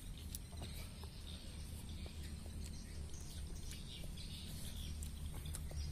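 Small birds chirping here and there over a low steady rumble, with scattered faint clicks.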